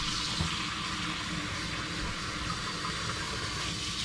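Kitchen faucet running steadily into a bowl of raw chicken in a stainless steel sink, the water splashing over the chicken as it is rinsed.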